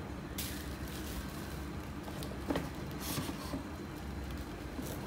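Faint handling noise: a few soft rustles and light taps, about half a second in, around two and a half to three seconds in, and near the end, over a steady low room hum.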